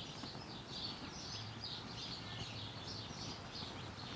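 Birds chirping, a run of short high chirps several times a second over a steady outdoor background hum.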